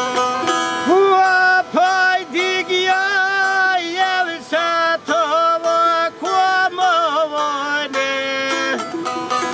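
Folk song: a singer holds long, wavering notes over a plucked string instrument. The voice comes in about a second in and breaks off near the end, leaving the plucked strings.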